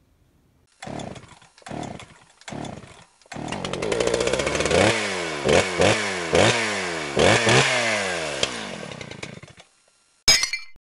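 Small gas engine, chainsaw-like: three short bursts, then it catches and runs, revving up and back down sharply several times before dying away. A short sharp hit comes near the end.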